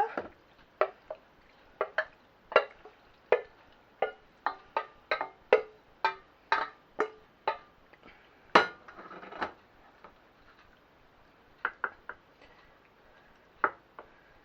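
A kitchen utensil knocking and clinking against a pan and casserole dish as saucy pasta is spooned in: a sharp knock about every half second for the first seven seconds or so, a louder knock with a short scrape just before halfway, then a few scattered taps.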